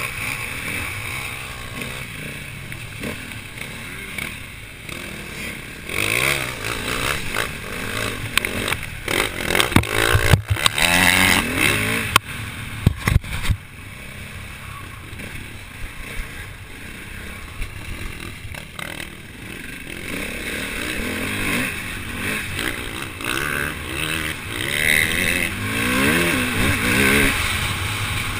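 KTM 450 EXC single-cylinder four-stroke enduro engine being ridden hard, the revs rising and falling through gear changes and throttle. A run of loud knocks and rattles from the bike over rough ground comes around the middle.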